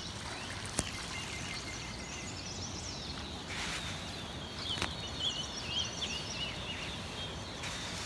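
Birds chirping and warbling in many short, quick calls over a steady background hiss, with two sharp clicks, about a second in and about five seconds in.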